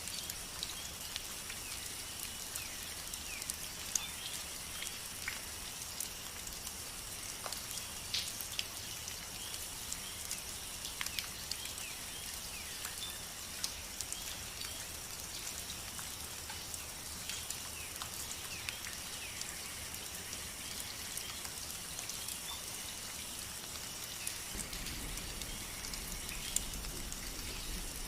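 Outdoor nature ambience: steady rain with many individual drops ticking, over a constant high-pitched background and scattered short chirps. A low rumble comes in near the end.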